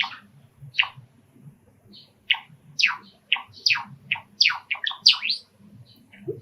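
A male Java sparrow singing close by: a run of short, sharp chirping notes that come faster and faster, bunching into a quick cluster about five seconds in.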